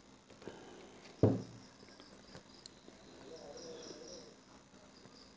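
One sudden low thump about a second in, over quiet room tone. Faint, rapidly repeated high chirping, like crickets, comes in around the middle and again near the end.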